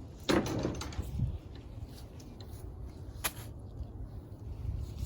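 Handling noise: a short noisy scrape or rustle about a third of a second in, and a single sharp click about three seconds in, over a low rumble.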